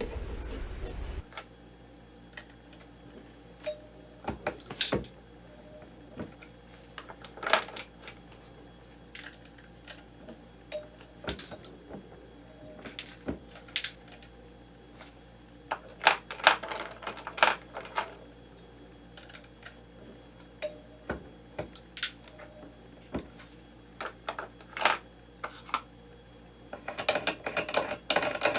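A second of steady noise, then scattered sharp clicks and clinks of small hard objects being handled, growing into a denser run of clicking near the end.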